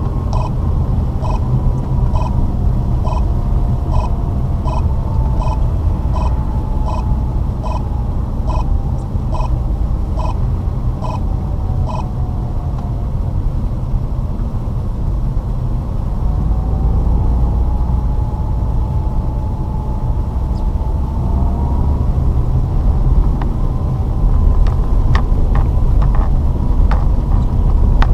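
Lada Vesta driving on snowy roads: a steady low rumble of engine and road noise, with an even ticking about twice a second for the first twelve seconds, a slowly rising whine around the middle, and a few sharp clicks near the end.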